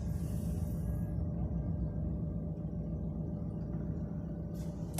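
GMC Denali engine idling steadily after starting normally, the no-crank clicking fault cured by cleaning a corroded ground cable.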